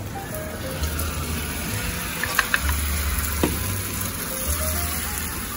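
Beaten egg sizzling in a hot rectangular tamagoyaki pan as it is poured in and spread for dashimaki tamago, a steady hiss. A few sharp clicks come around the middle.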